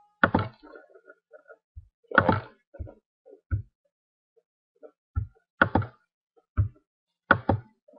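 A computer mouse clicking and bumping on a desk, heard through a desk microphone as about eight soft, irregular knocks and thuds.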